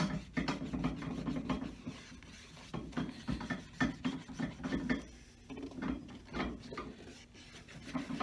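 A piece of wood rubbed firmly back and forth over a new leather sole in repeated scraping strokes: the stitching on the sole is being ironed out to close it and make it smooth and glassy.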